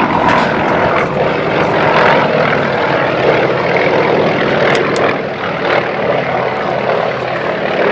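Propeller aircraft running steadily overhead: the nine-cylinder radial engines of a Yak-55 and a Yak-18T flying in formation.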